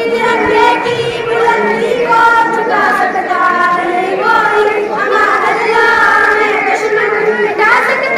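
Young girls singing a patriotic nazm into a microphone, in long held, melodic phrases.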